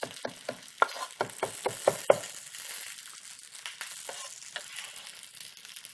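Chef's knife chopping cilantro on a wooden cutting board: a quick run of about a dozen strokes in the first two seconds, then a few scattered ones. Under it is a steady sizzle of cactus paddles (nopales) frying in a pan.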